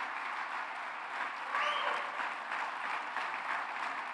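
An audience applauding steadily, with one voice calling out briefly over the clapping about one and a half seconds in.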